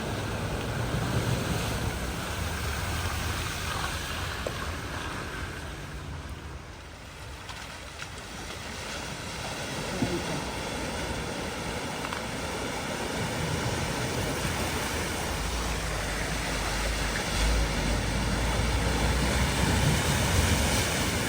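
Floodwater rushing across a ford, with wind buffeting the microphone. A vehicle's engine grows louder over the last several seconds.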